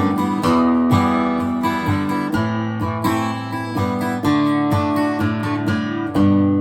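Instrumental passage of a pop song: acoustic guitar strumming chords, with no singing.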